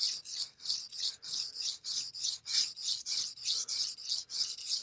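Steel blade being stroked back and forth on a wet Japanese natural whetstone, a gritty rasp about three strokes a second. The blade is being worked hard to remove the scratch marks left by the coarser Binsui stone, raising swarf on the surface.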